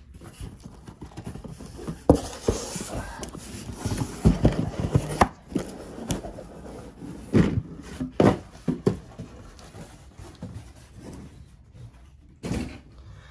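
Cardboard shipping case being opened by hand: flaps scraping and folding back, with irregular knocks and rubbing as the boxes inside are handled, and a single thump near the end.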